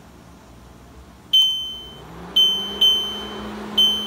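Touch controls of a glass-top electric cooktop beeping four times as it is switched on and set to medium-low heat: short, high, electronic beeps. About halfway through, the hob starts a steady low hum as it begins heating.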